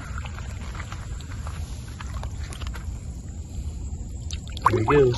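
Rustling, steps and small splashes as a snakehead is carried through grass and let go into shallow pond water, over a steady low rumble. Near the end comes a brief loud pitched sound, like a short vocal exclamation.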